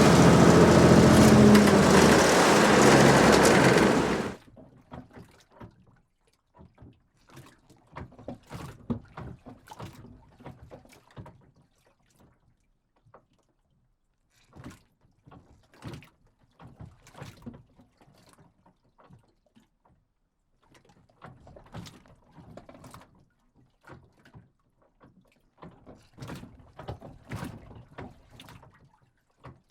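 A boat's engine running steadily, then cut off abruptly about four seconds in. After that, faint scattered splashes of water and light knocks on the boat.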